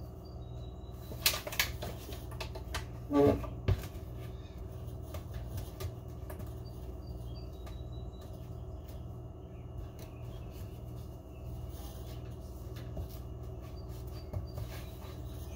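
A spoon stirring stiff pizza dough in a mixing bowl: irregular light knocks and scrapes, with a few louder clunks of spoon or cup against the bowl in the first few seconds, over a steady low hum.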